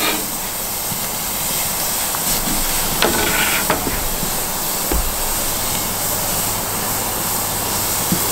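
Marinated flank steak sizzling steadily on a hot kamado grill grate over direct high charcoal heat, having just been laid on. A few short clicks come about three seconds in and a low thump about five seconds in.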